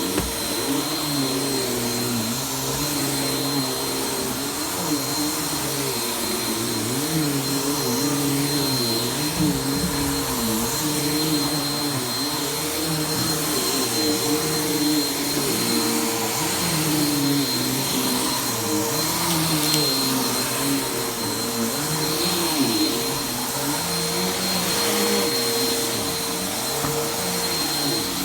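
Vacuum cleaner running steadily on carpet: a constant airy hiss with a steady high whine, and a lower hum that wavers up and down in pitch as the machine is worked back and forth.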